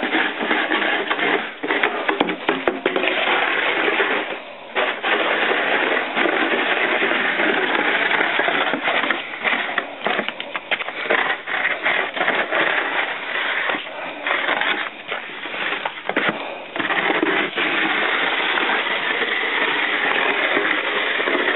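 Snow shovel blade scraping and pushing snow along a wooden deck, a near-continuous scrape broken by irregular knocks and clatter as a dog bites and paws at the blade.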